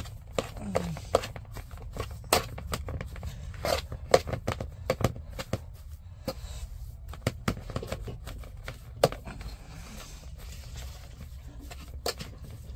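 A metal spoon mashing and stirring a soft food mixture in an aluminium basin, clinking and scraping against the metal in irregular clicks and knocks that come thickest in the first half and thin out near the end.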